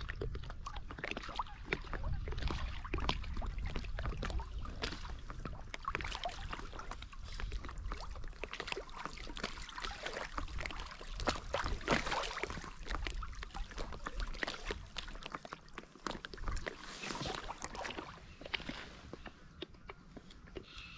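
Water splashing and sloshing close to the microphone in an irregular run of small splashes, with a low rumble underneath; it grows busiest about halfway through.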